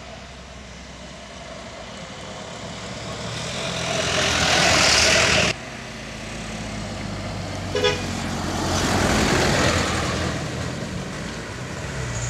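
Trucks passing on a mountain road: engine and tyre noise swells as one approaches and cuts off abruptly about five seconds in. A short horn toot comes about eight seconds in, then another truck's engine noise swells and fades.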